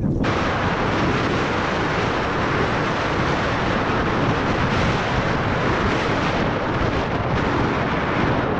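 Wind buffeting the microphone of a head-mounted camera on a snowkiter moving across snow on skis: a loud, steady rushing noise.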